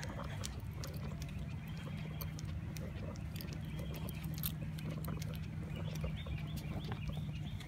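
Footsteps on pavement and phone handling noise while walking a dog on a leash, with scattered light clicks over a steady low hum.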